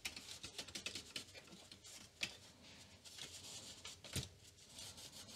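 Faint scratchy rubbing of an alcohol-wetted cotton swab and cotton pad scrubbing the plastic and metal parts of an opened floppy disk drive, with small clicks throughout and a couple of sharper ticks about two and four seconds in.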